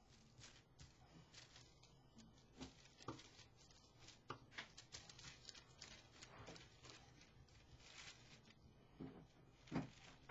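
Faint, irregular little taps, clicks and rustles of tissue paper scraps being handled with tweezers and pressed onto wax paper by fingertips, with a louder knock near the end.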